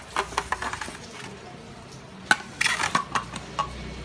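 Plastic motorcycle mirrors being handled: light clicks and clacks as they are lifted out of styrofoam packing and set down on a tile floor. There is a sharper knock a little past halfway, then a short run of clatter.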